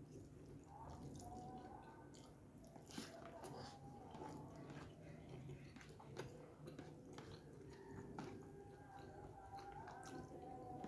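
Faint close-up chewing of a mouthful of rice and side dishes, with small wet mouth clicks and smacks scattered throughout.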